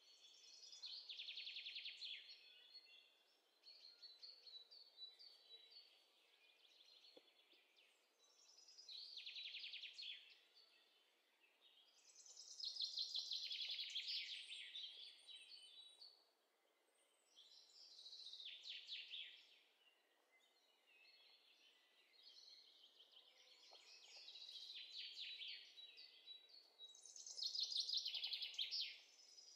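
A recorded birds-chirping sound effect: quiet bursts of rapid, high chirping and trills, about seven of them, each lasting one to three seconds with short gaps between.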